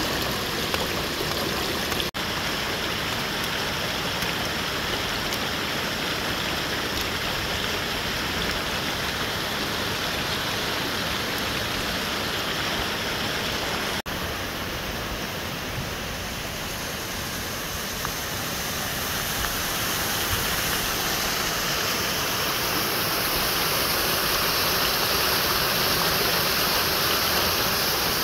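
Mountain stream rushing over rocks: a steady, even rush of water that grows louder over the last several seconds.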